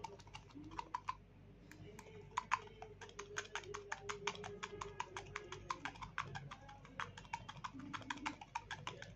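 Faint rapid run of small plastic clicks and crackles, several a second, from a soft plastic tube of lighter fluid being squeezed into the fuel tank of a flint bullet lighter. A faint wavering hum sits underneath.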